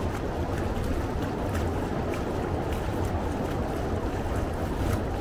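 A river tour boat under way: a steady, unchanging low drone with a wash of noise over it.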